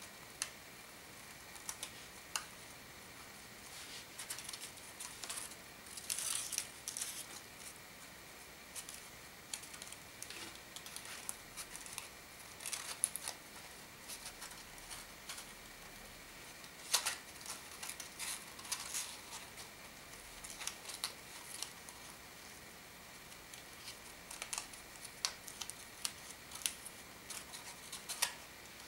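Folded origami paper modules rustling and crackling in the hands as they are slotted together into a kusudama ball: soft irregular crinkles and ticks, a few sharper, over a faint steady high hum.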